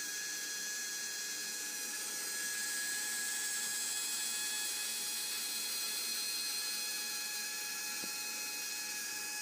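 Steady high-pitched whine and hiss of a small electric fuel pump running on the mini V8's fuel-injection test rig, with the engine itself silent. It grows a little louder in the middle.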